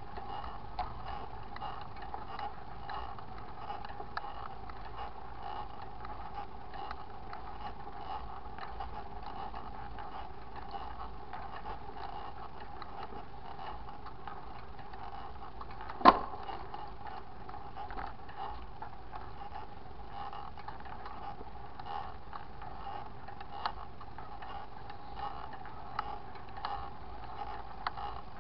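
Bicycle drivetrain running as the bike is ridden: a steady whir from the chain and gears with scattered small ticks, and one sharp loud click about sixteen seconds in.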